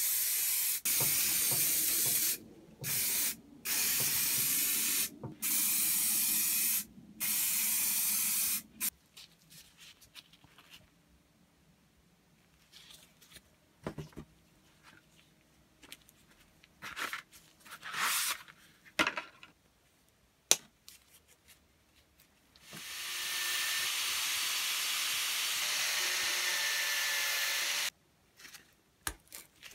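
Aerosol spray-paint can hissing in a run of bursts of one to two seconds each, with short gaps between. It is followed by scattered light clicks and taps of small metal parts being handled, and a steady hiss lasting about five seconds near the end.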